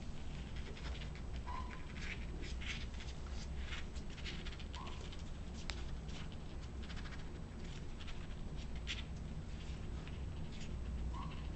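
Newspaper rustling and crinkling under kittens moving and playing on it, with three brief high kitten mews, over a low steady hum.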